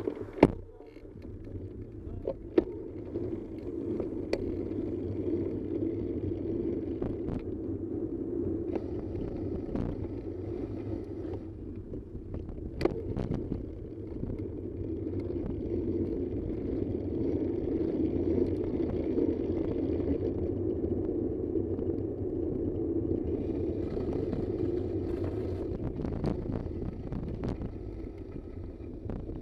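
Steady engine and road noise from a moving vehicle, heard while driving, with a few sharp clicks.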